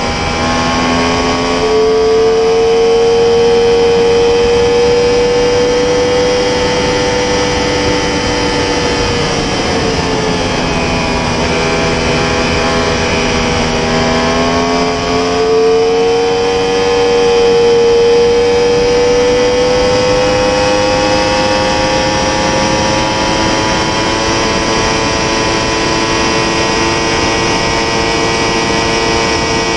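Yamaha R1's crossplane inline-four engine under throttle in fifth gear at very high speed, over steady wind rush. The engine pitch sags about ten seconds in, then climbs steadily for the rest of the time as the bike accelerates toward 300 km/h.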